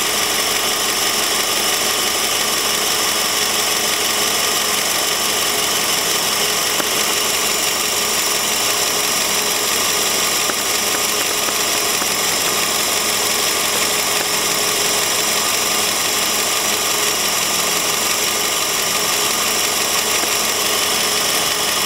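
Toyota Vios engine idling steadily with its accessory drive belt making an abnormal noise, a steady high-pitched hiss and whine over the engine. The owner links the belt noise to the air-conditioning compressor pulley, which condensate water drips onto and rusts.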